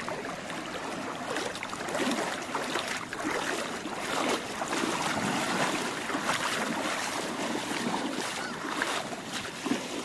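Small waves washing and lapping onto a sandy beach at the water's edge, a steady rush of water that grows louder about two seconds in and eases near the end.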